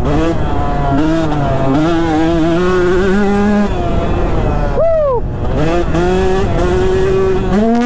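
KTM 150 SX single-cylinder two-stroke dirt bike engine pulling under throttle while riding a motocross track, its pitch fairly steady at first. About five seconds in, it revs sharply up, then the throttle is chopped and the engine drops off briefly before pulling again.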